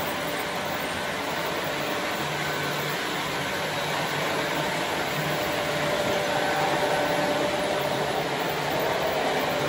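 Model freight train running on the layout's track, a steady whir of the wheels and the locomotive's motor as the cars roll past.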